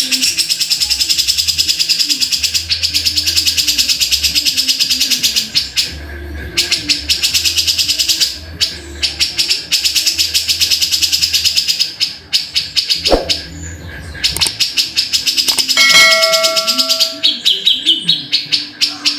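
Cucak jenggot (grey-cheeked bulbul) singing a fast chatter of rapidly repeated high notes, in long runs broken by short pauses. Near the end come a few briefly held whistled tones.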